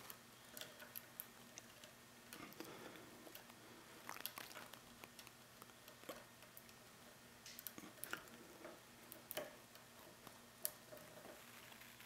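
Faint, irregular small metallic clicks and scrapes of a lock pick working the pins inside a Rav Bariach pin-tumbler padlock, a Mul-T-Lock clone, under light tension during single-pin picking.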